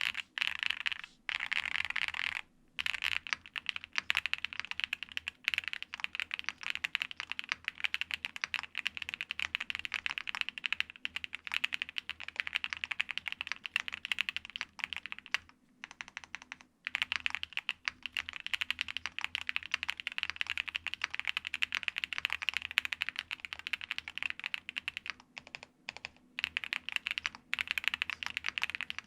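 Continuous typing on a Qwertykeys QK65 gasket-mount custom keyboard with factory-lubed Angry Miao Icy Silver linear switches and ABS keycaps: a fast, dense run of keystrokes with a 'bubbly' sound, broken by a few short pauses.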